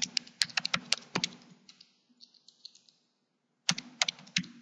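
Typing on a computer keyboard: a quick run of keystrokes in the first second or so, a pause of about two seconds, then a few more keystrokes near the end.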